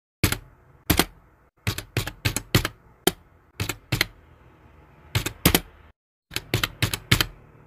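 A fast, uneven run of sharp clacks like typing keys, about twenty in short bunches over a faint hum, breaking off into dead silence twice.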